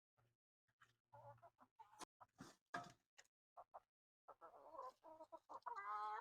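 Laying hens clucking in short, quick calls, then a longer pitched call that builds and is loudest near the end.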